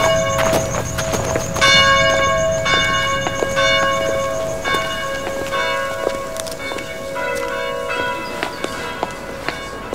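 Church bells ringing, a new strike about once a second over a long-ringing hum, growing fainter near the end.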